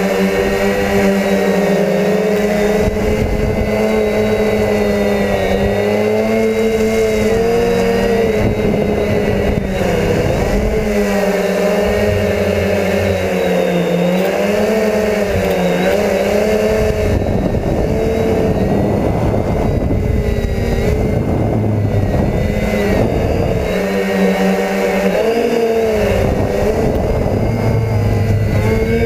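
DJI F450 quadcopter's brushless motors and propellers whining up close from the onboard camera, several pitches rising and dipping together as the throttle changes.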